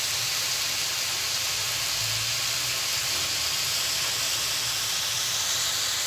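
Green beans (Baguio beans) sizzling in a hot pan as they are sautéed, a steady even hiss.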